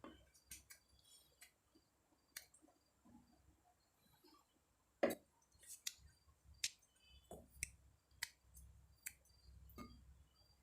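Faint, irregular clicks and taps of green olives being handled and scored with a knife, with one louder knock about five seconds in.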